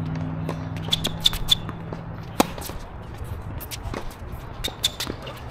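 Tennis ball being struck by rackets and bouncing on a hard court during a rally: a run of sharp pops and knocks at uneven intervals, with shoe scuffs on the court surface.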